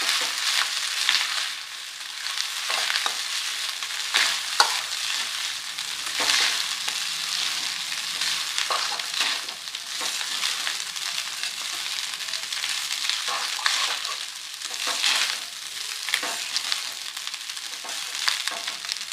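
Steel spatula scraping and knocking against a non-stick kadai as cooked rice is stirred through hot oil and ghee with cumin and whole spices, in irregular strokes over a soft sizzle.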